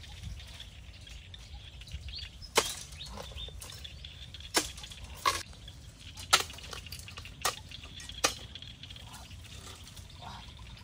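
A young bamboo shoot cracking and snapping as it is bent back and forth by hand to break it off: about six sharp cracks at uneven intervals, the first one the loudest.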